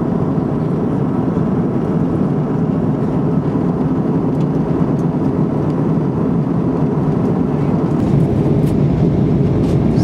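Steady cabin noise of an airliner on its descent, the engines and rushing air heard from inside the passenger cabin as an even, unchanging rumble.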